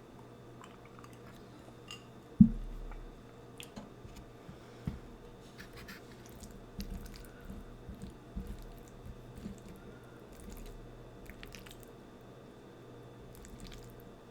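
Close-miked chewing and wet mouth sounds from a mouthful of food, irregular small smacks and clicks. About two and a half seconds in there is one sharp, loud low thump, over a faint steady hum.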